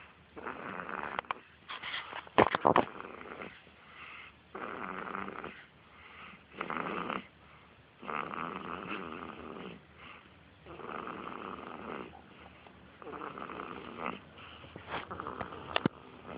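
Four-week-old baby snoring in her sleep, a noisy breath about every two seconds. A few sharp clicks come about two and a half seconds in.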